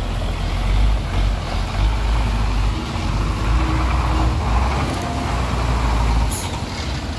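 Mitsubishi Fuso tow truck's diesel engine running low and steady as it drives slowly past at close range, with a brief hiss of air from its air brakes near the end.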